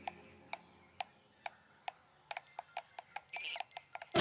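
Sharp clock-like ticking, about two ticks a second, that quickens after about two seconds, with a brief high warbling chirp about three and a half seconds in.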